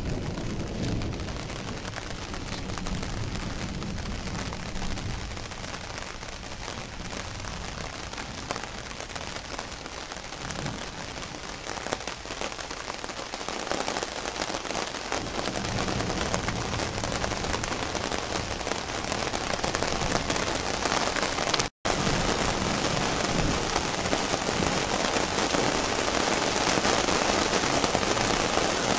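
Heavy rain falling steadily, growing louder over the second half. It cuts out for an instant about two-thirds of the way through.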